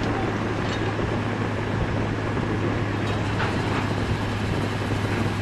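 An engine running steadily, a low even drone under a noisy mechanical haze.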